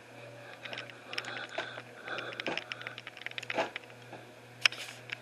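Irregular clicks and rustles of the camcorder being handled and moved, over a steady low hum.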